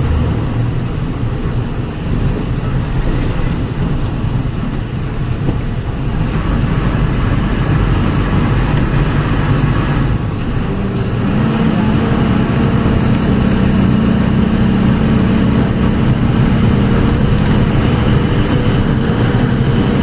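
Engine drone and tyre noise from inside a moving road vehicle. About eleven seconds in, the engine note strengthens into a steady hum that slowly rises in pitch.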